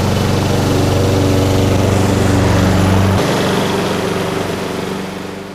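Briggs & Stratton Quantum single-cylinder engine of a Brill Hattrick mower-scarifier running steadily, with the scarifier roller engaged. It drops abruptly about three seconds in and then fades.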